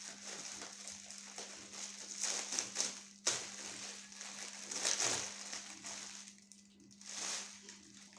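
Gift-wrapping paper rustling, crumpling and tearing as a present is unwrapped, in several irregular bursts over a faint steady hum.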